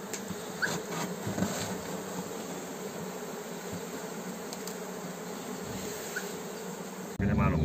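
Swarm of honeybees buzzing steadily in and around the cardboard box they have just been put into; the buzzing stops abruptly near the end.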